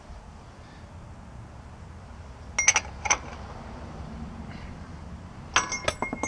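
Small steel hub parts clinking against each other: two sharp clinks with a brief metallic ring a few seconds in, then a quick run of clinks near the end, the last one left ringing.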